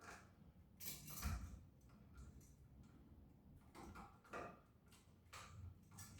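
Faint scattered clicks and handling noise of a green grounding wire nut being slid over braided copper ground wires, the loudest click about a second in.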